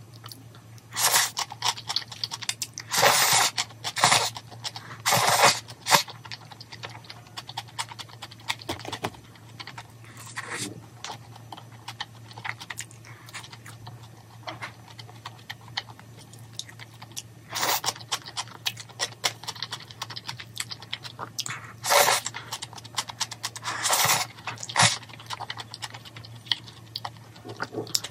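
Close-up mukbang eating of jjajangmyeon: black-bean noodles slurped in loud short bursts several times, with chewing and the crunch of pickled yellow radish in between, over a low steady hum.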